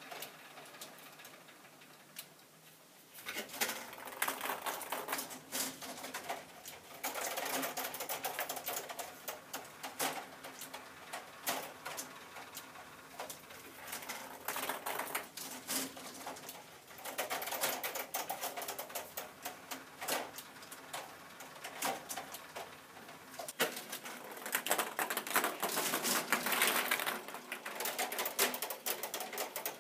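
K'Nex ping-pong-ball fruit machine at work: its plastic mechanism clicks and rattles in dense, uneven runs. The clatter starts about three seconds in and swells and eases in waves.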